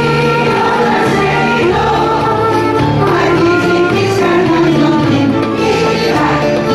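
Choir singing a Greek folk song, accompanied by bouzouki and keyboard.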